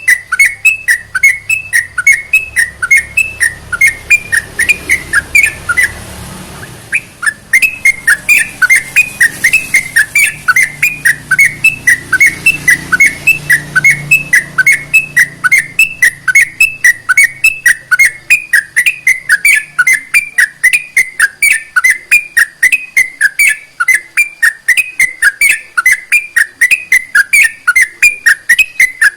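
Yellow-vented bulbul (trucukan) calling in a fast, unbroken series of short whistled notes, about three a second, with a short break about six seconds in.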